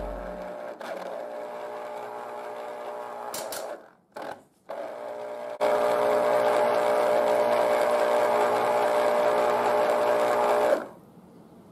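Black + Decker electric citrus juicer's motor spinning the reamer as an orange half is pressed down onto it: a steady hum that cuts out briefly about four seconds in, then runs louder from about five and a half seconds until it stops near eleven seconds.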